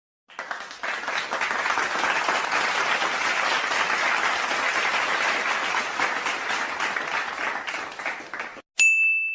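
Applause sound effect: a crowd clapping steadily for about eight seconds, then cutting off abruptly. Just after, a single bright bell ding rings out near the end.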